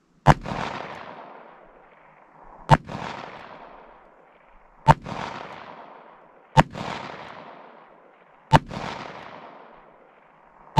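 Ruger Vaquero single-action revolver with a 5.5-inch barrel firing .45 Colt rounds: five shots about two seconds apart, with a sixth right at the end. Each shot is followed by a long fading echo.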